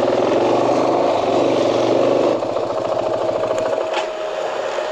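KTM 500 single-cylinder dual-sport motorcycle engine running as the bike rolls slowly. About two seconds in it eases off to a lower, quieter note as the bike slows to a stop.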